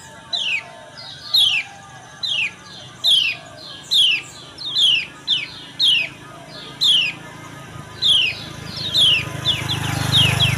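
Female kecial kuning (lemon-bellied white-eye) giving its 'ciak' call: short, sharp chirps that fall in pitch, about two a second, some doubled, with a quick run of several near the end. A low rumble rises under the calls near the end.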